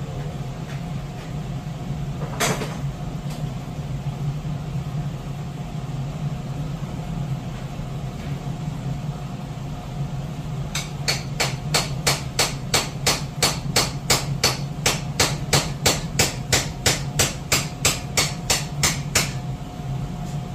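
Hand tool working metal on a tractor's split housing: one sharp knock, then an even run of sharp metal clicks, about three a second, for some eight seconds. A steady low hum runs underneath.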